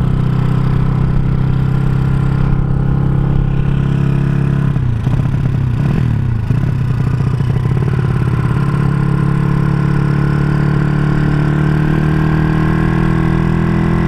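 Honda Supra motorcycle's single-cylinder four-stroke engine, bored out to 200cc and breathing through a CJDW aftermarket exhaust, running under way. The engine note drops and wavers about five seconds in, then climbs slowly again towards the end.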